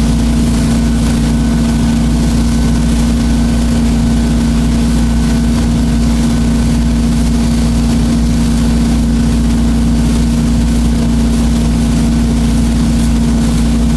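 A boat's engine running at a steady speed, a constant low hum with one strong held tone, over the steady rush of its churning wake.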